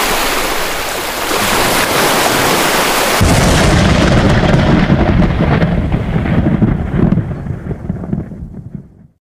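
Explosion sound effect: a loud rushing noise, then a sudden deep boom about three seconds in, whose rumble slowly fades away before the end.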